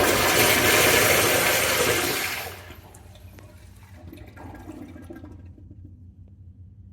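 A toilet flushing: a loud rush of water that drops away sharply about two and a half seconds in. It leaves a faint trickle and a low hum.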